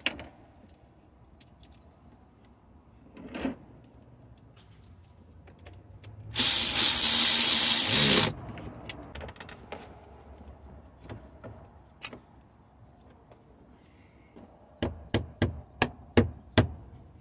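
Workshop tool and hardware sounds: scattered small clicks and knocks, a loud two-second burst from a power tool about six seconds in, and a quick run of about six sharp knocks near the end.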